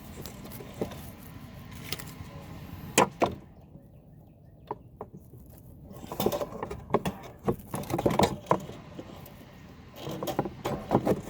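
Scattered metallic clicks and clinks from hand work on a Husqvarna AWD mower's self-propel drive cable and its clamp as the cable is fitted. Two sharp clicks come about three seconds in, and a run of small rattling clicks follows later.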